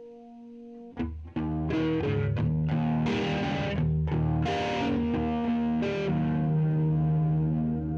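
Electric guitar played through a Donner Jet Convolution flanger pedal. A held note fades for the first second, then chords are strummed hard from about a second in and left to ring, with the flanger sweeping through them.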